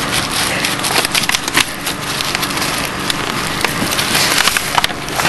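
Bubble-wrap packing crinkling and crackling in quick, irregular clicks as wrapped bike parts are handled inside a cardboard shipping box.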